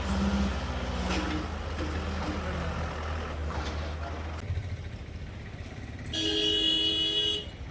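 A vehicle engine runs with a low, steady drone, then a horn sounds once, steadily, for about a second and a half near the end.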